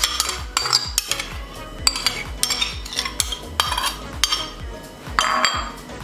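Metal spoon scraping and tapping yogurt out of its container into a glass bowl of chicken pieces, a run of quick clicks and clinks.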